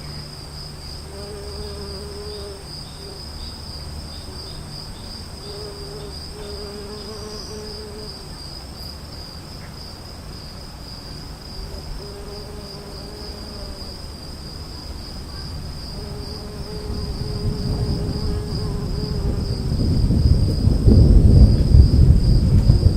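Insects trilling steadily, with repeated short low calls from some animal in the first half, then a thunder rumble building from about three-quarters in and loudest near the end as the afternoon storm arrives.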